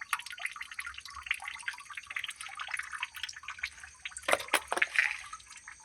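Water dripping in quick, irregular drops off a freshly washed, wet tractor tyre and rim, with a few louder knocks about four seconds in.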